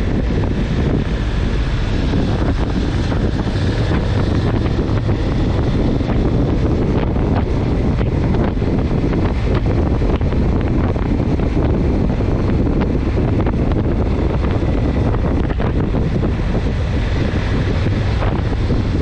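Steady wind noise buffeting a handlebar-mounted camera's microphone while riding, with a low rumble underneath.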